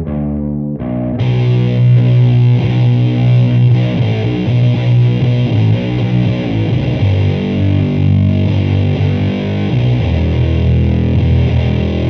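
Electric guitar played through the Sabbathi one-knob boosted octave fuzz pedal, based on the Boss FZ-2 Hyper Fuzz: a few picked notes with the pedal off, then about a second in the fuzz is switched on and a thick, distorted low riff rings out, the pedal's octave-up circuit adding a bright edge above it.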